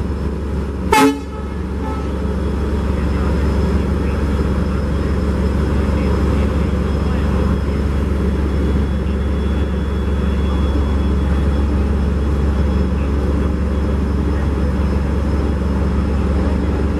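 WDP4D diesel-electric locomotive's EMD two-stroke engine running with a steady low drone, growing slightly louder over the first few seconds. A short horn toot sounds about a second in.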